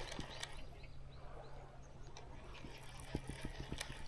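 Baitcasting reel being cranked, a steady low whir from the spool and gears while a stickbait is retrieved. A quick run of small ticks comes about three seconds in.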